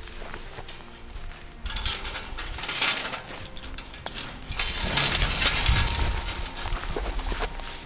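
Woven-wire field fence rattling and clinking in irregular bursts, twice, as a goat whose head is stuck in the mesh is pulled and struggles free.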